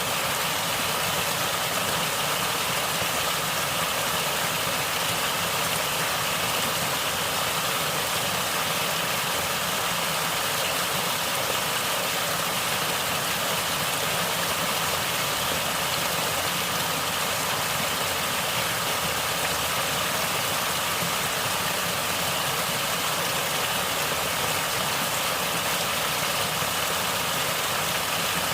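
Natural water flowing and gurgling, a steady, unchanging rushing sound.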